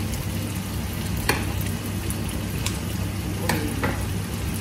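Tofu sizzling steadily as it fries in hot oil, with about four sharp clinks of a spoon against a bowl as curry spice paste and coconut milk are stirred.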